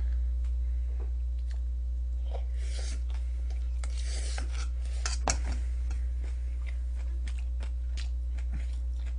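Metal spoon scraping and clinking against a stainless steel bowl as bibimbap is scooped out and into the mouth, with the scraping busiest in the middle and one sharp clink about five seconds in. A steady low hum runs underneath.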